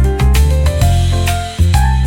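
Upbeat background music: a melody of short plucked or keyboard notes over a heavy bass line that changes note about every half second, with light percussion.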